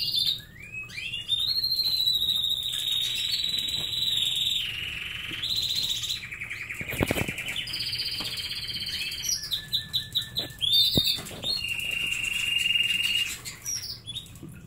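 Canary song: long, rapid trills held at a steady pitch, switching from one pitch to another, with short chirps in between and a couple of sharp clicks.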